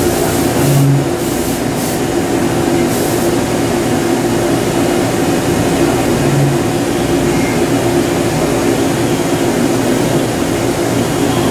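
CNC machining center drilling into carbon steel with a carbide flat-bottom drill: a steady spindle hum under constant cutting noise, with a deeper swell twice.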